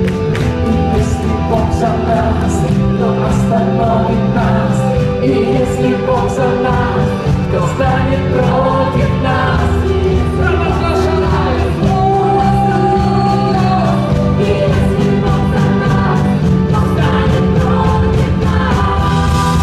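Live worship band playing an upbeat song on electric guitar, bass guitar, drum kit and keyboard, with singing over it.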